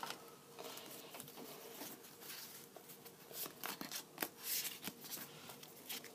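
Pokémon trading cards being slid, fanned and squared up in the hands: a run of faint, short rustles and flicks, busiest around the middle.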